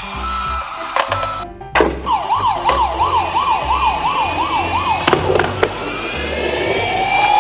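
An emergency siren first yelps in a fast up-and-down warble of about three sweeps a second. After a short break it changes to a slow rising wail. Background music with a steady beat plays underneath.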